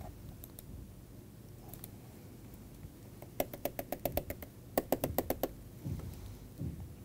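Two quick runs of sharp clicks at a computer, about eight in a second and then six more half a second later, over faint room tone.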